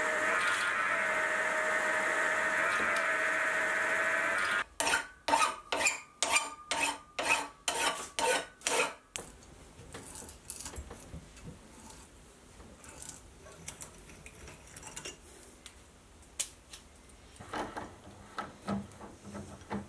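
Milling machine spindle drilling a mild-steel part, a steady machining sound with a held tone, stopping about four and a half seconds in. Then comes a run of about nine short, harsh strokes, about two a second, followed by faint clicks and metal ticks from a tap being turned by hand in a tap wrench.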